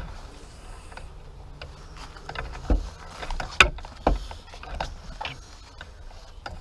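Handling noise of a camera being picked up and repositioned: scattered clicks, knocks and rubbing, with three louder bumps about three to four seconds in.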